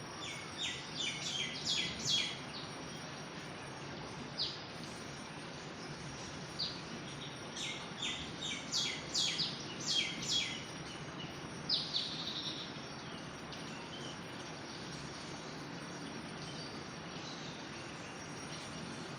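Birds chirping in a forest: clusters of short, quick, falling chirps over a steady background hiss, thickest in the first twelve seconds and then stopping, leaving only the hiss.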